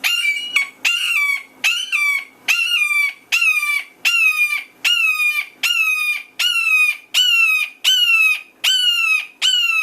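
Red-shouldered hawk giving its loud, repeated 'kee-ah' call: a steady series of slurred, slightly falling screams, about one every three-quarters of a second, as it is held in the hand.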